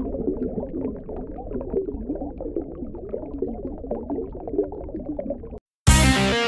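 Water bubbling and gurgling, a dense stream of small bubble blips, which stops about five and a half seconds in. Rock music with electric guitar starts abruptly just before the end.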